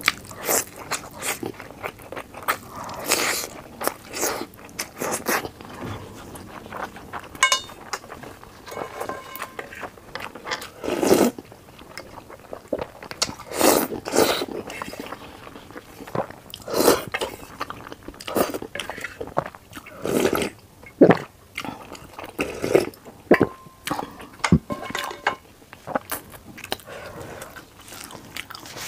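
Close-miked eating sounds: crunching bites into a crispy fried beef pie and chewing, with a few louder slurps of soup from a spoon.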